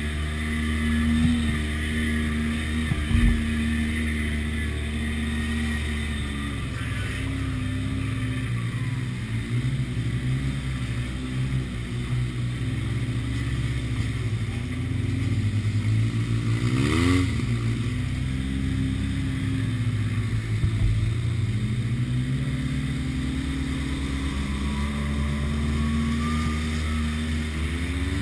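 Side-by-side UTV's engine running while driving, its note rising and falling with the throttle, with a quick rev up a little past the middle. A single sharp knock about three seconds in.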